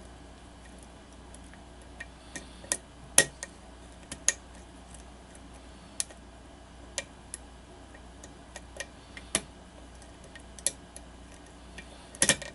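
Metal lock pick clicking against the pins inside a pin-tumbler lock cylinder held under tension: irregular sharp clicks, the loudest about three seconds in and a quick cluster near the end.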